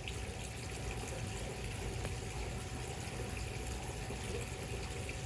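Steady, even rushing noise with a low hum beneath it.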